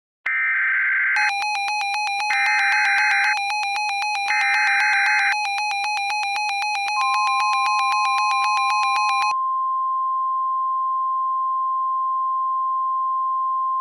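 Emergency Alert System tone sequence. Three short bursts of warbling SAME header data are overlaid, from about a second in, by a rapid pulsing electronic beep. About seven seconds in, the steady 1050 Hz weather-radio warning alarm tone joins, and it carries on alone once the beeping stops a little past nine seconds.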